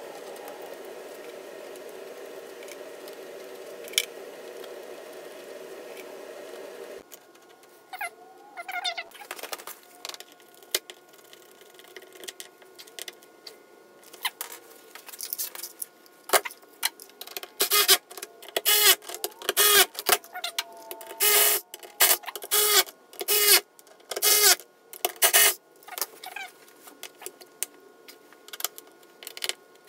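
A steady hum for about the first seven seconds, cut off abruptly. After it come irregular clicks, taps and short scraping rattles of hand tools working at a fuel tank's pump mounting flange, in quick bursts.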